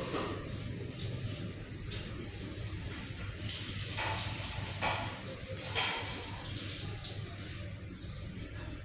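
Water running steadily from a tap while a parrot's cage is washed, with a few light knocks and clatters.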